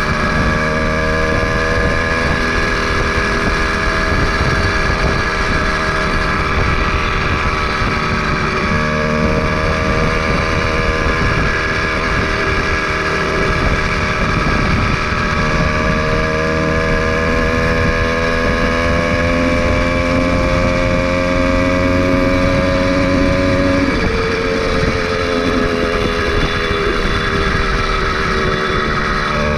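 Motorized bicycle's two-stroke engine, fed by a speed carburetor, running under load on a ride. Its pitch drops about nine seconds in, climbs slowly for some fifteen seconds, then drops again and sags.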